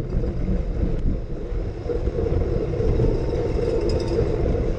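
Steady wind rush and road rumble on a seat-mounted camera's microphone as a Brompton folding bike is ridden fast.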